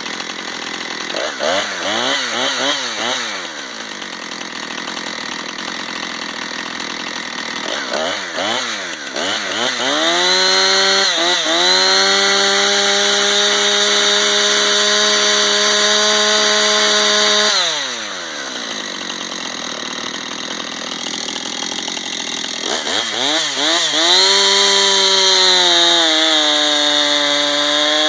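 Husqvarna 455 Rancher two-stroke chainsaw, blipped up and down twice from idle, then held at full throttle for about seven seconds before dropping back to idle. It revs up and is held high again near the end, its pitch sagging a little as if loaded in a cut.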